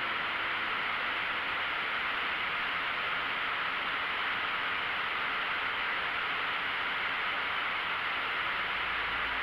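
Steady in-flight noise of a light aircraft in cruise: an even, unbroken hiss with most of its weight in the upper middle range.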